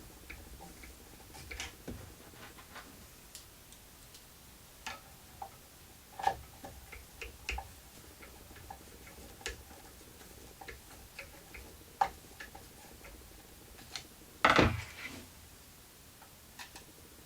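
Irregular light clicks and taps of an Allen wrench and small metal hardware while a stepper motor and its coupling are fastened to a CNC router frame. There is one louder clatter about two-thirds of the way through.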